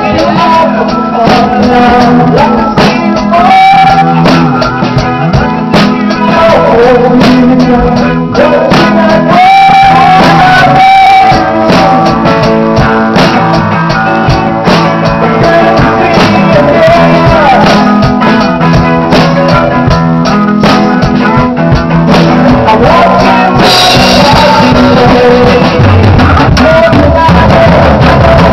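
A live band jamming loud and close in a small room: electric guitars and a drum kit, with a singer. The guitar or vocal lines bend in pitch over a steady drumbeat.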